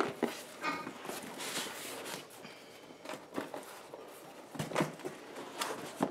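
Cardboard packaging being handled: a flat cardboard box is slid and lifted out of a large shipping carton, with rustling, scraping and a few knocks.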